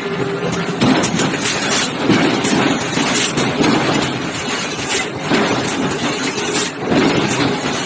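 Forge shop machinery running with a steady rumble, broken by irregular sharp knocks and clanks about once a second, the noise of large open-die forging work.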